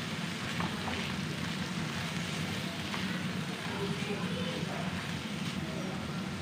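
Corn kernels sizzling in a nonstick frying pan with a steady hiss, as a plastic slotted spatula stirs them, making a few faint scrapes.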